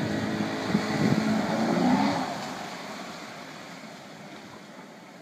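Speedboat engine running at speed as the boat turns hard, a steady drone that fades away over the last few seconds as the boat moves off.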